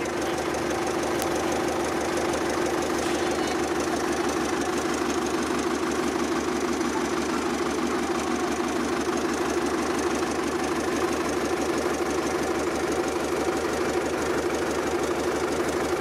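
Road roller's engine running steadily at constant speed, with a fast, even pulse.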